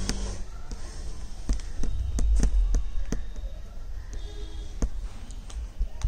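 Irregular light clicks and taps, two or three a second, from hand beadwork: a needle stitching glass beads and sequins through velvet, the beads clicking on the needle, over a steady low rumble.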